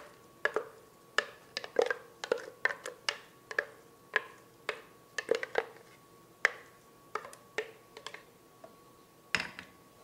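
Wooden spoon knocking and scraping against the inside of a plastic blender jar as thick, chunky potato purée is pushed out. The sharp, irregular knocks come about twice a second, with a louder pair near the end.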